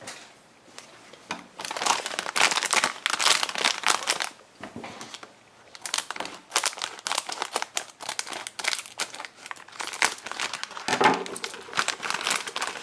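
Plastic wrapper of a Popin' Cookin' candy-kit packet crinkling as it is handled and cut open with scissors. The crackling comes in two stretches with a short pause between them.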